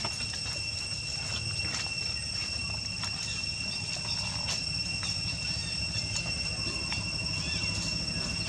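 Steady, unbroken high-pitched insect drone with a second, higher tone above it, over a low continuous rumble and a few faint clicks.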